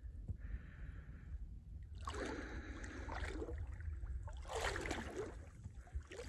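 Someone wading through shallow lake water: two splashing, swishing surges of water about two seconds apart, over a low steady rumble.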